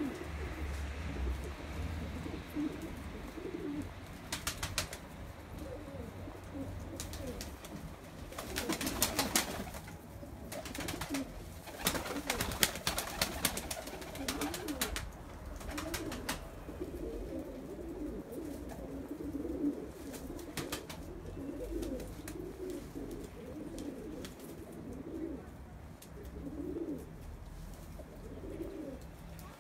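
Domestic pigeons cooing steadily, many birds at once, with several short bursts of wing flapping, the loudest around the middle.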